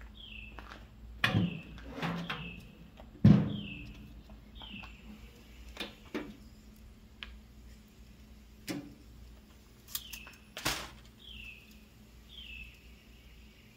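A bird repeats a short downward-slurred whistle about once a second, over a scatter of sharp knocks and clatters, the loudest about three seconds in.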